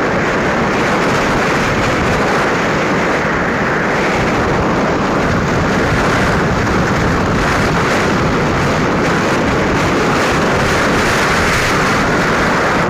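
Loud, steady rush of wind on the microphone while travelling along a road in a moving vehicle, with road noise mixed in.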